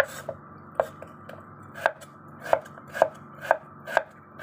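A broad kitchen knife chopping white radish (daikon) strips on a wooden cutting board, with sharp knocks as the blade hits the board. There are about eight cuts, roughly two a second, falling into a steady rhythm from about two seconds in.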